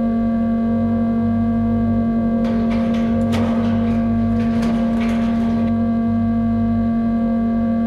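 Power electronics noise track: a steady buzzing drone with overtones over a low hum that comes and goes. From about two and a half seconds in until nearly six seconds, a burst of harsh crackling static noise is layered on top, then cuts out, leaving the drone.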